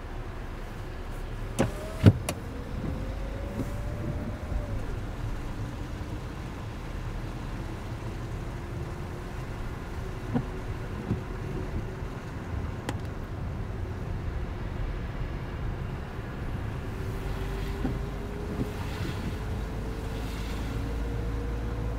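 Car driving on wet, slushy streets, heard from inside the cabin: a steady low road rumble with an engine note that rises as the car pulls away, drops, then climbs again near the end. A couple of sharp clicks come about two seconds in, with a few lighter knocks later.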